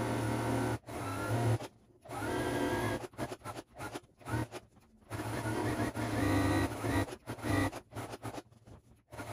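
Domestic sewing machine running at speed while free-motion stitching, with the needle going in runs of one to three seconds. It stops briefly several times, most clearly about two seconds in, a little past the midpoint and near the end.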